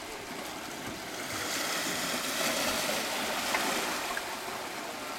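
Water washing along the shore: a steady rushing wash that swells for a couple of seconds in the middle, then eases.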